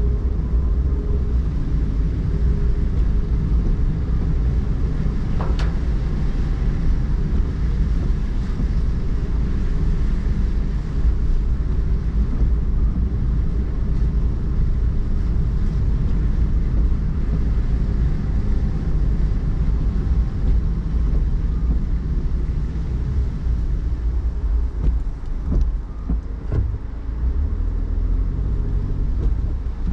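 Car driving slowly on wet city streets, heard from inside the cabin: a steady low rumble of road and engine noise with a faint hiss over it. A single sharp click sounds about five and a half seconds in.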